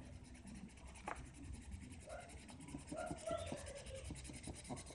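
Faint scratching of a coloured pencil shading on paper, with a few light clicks of the lead.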